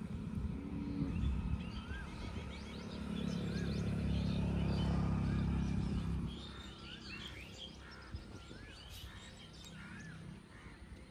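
Birds calling around a pond: one bird repeats a short rising-and-falling note every second or two over scattered higher chirps. A low rumble underneath swells about three seconds in and drops away about six seconds in.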